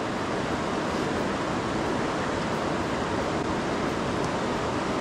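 Steady rushing of a fast-flowing river running over shallow riffles.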